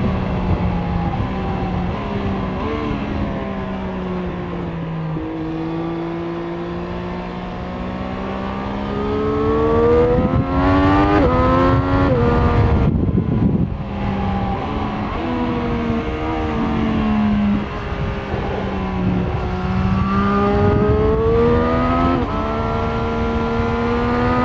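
Triumph Street Triple 765 RS's inline three-cylinder engine on its stock exhaust, heard from the rider's seat as it pulls up through the revs, with the note dropping at each of several gear changes. It comes off the throttle briefly about halfway through, then climbs again.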